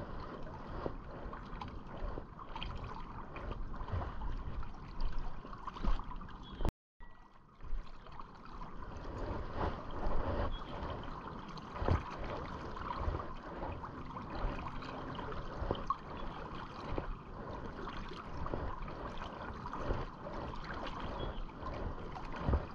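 River water lapping and trickling right at a camera held just above the surface, with scattered small splashes and ticks; the sound drops out completely for a moment about seven seconds in.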